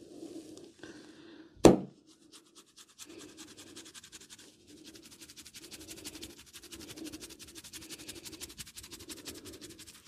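Fingernails scratching rapidly through oiled hair and scalp during a head massage, a fast, even scratching that starts about two and a half seconds in and runs on. Just before it, a single loud, sharp crack.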